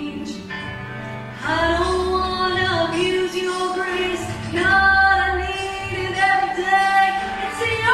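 A woman singing a solo through a handheld microphone, holding long notes in phrases over instrumental accompaniment with low bass notes.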